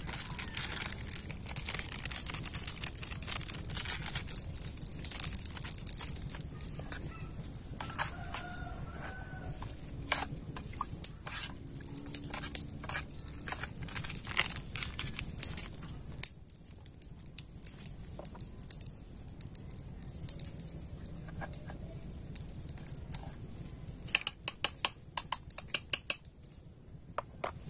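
A metal spoon clinking repeatedly against a metal camping pot as rice is stirred, a quick run of sharp taps near the end. Earlier, a few short animal calls and scattered small clicks over a steady high hiss.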